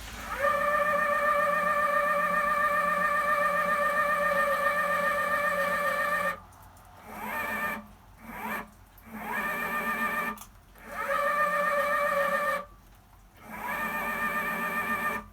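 Motorized telescope mount slewing at its slow 2°/s setting: the drive motor gives a steady, high whine of several tones, sliding up in pitch each time it starts. It runs for about six seconds, then stops and restarts four times in shorter runs. The whine is the abnormal noise the mount makes at this speed.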